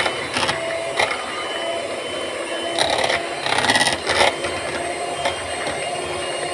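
Electric hand mixer running steadily, its twin beaters whisking cake batter with chopped nuts in a plastic bowl. A few sharper clatters come through, near the start and again around three to four seconds in.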